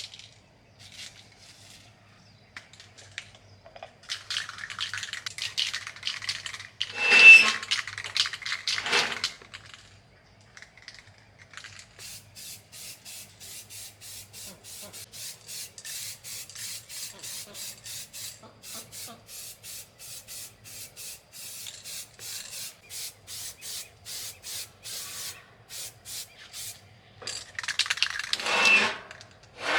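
Hand scraping and rubbing on a workpiece. There are loud, harsh scraping passes about four seconds in and again near the end, and between them a long run of short, even strokes at about two and a half a second.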